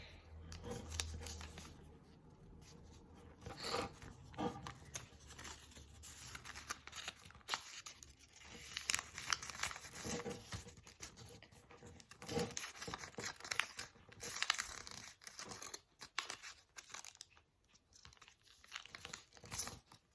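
A sheet of printer paper being handled and folded: irregular rustling and crinkling with sharp crackles as the creases are pressed and smoothed down.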